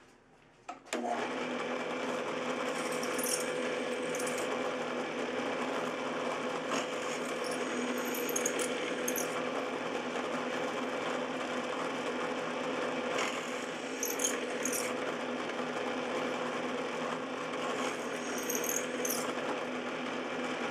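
Benchtop drill press running and drilling holes with a #5 twist drill in a metal plate: a steady motor hum that comes in about a second in, with brief high-pitched squeaks now and then.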